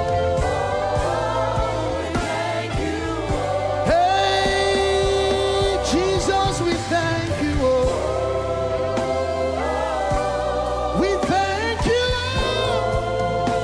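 Live gospel worship song: held, wavering sung notes with voices together, over a band with steady bass and drums.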